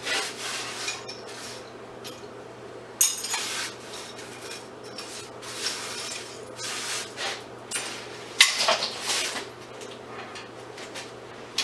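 Small pieces of scrap metal from a dismantled fluorescent light fixture clinking and clattering as they are handled and set down, in irregular knocks, the sharpest about three seconds and eight and a half seconds in, over a steady low hum.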